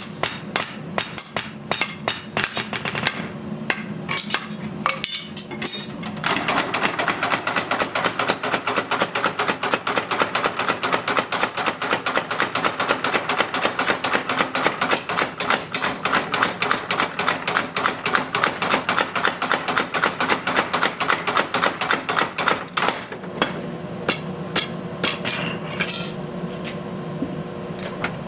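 Forging hammer blows on hot steel for a Japanese knife blade: spaced strikes at first, then a fast, even run of several blows a second from about six seconds in, easing back to slower single strikes near the end.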